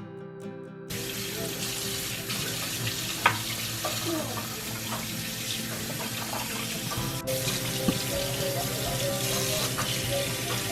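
Kitchen tap running steadily into a sink, starting about a second in, with a few light knocks and clinks. Soft music plays underneath.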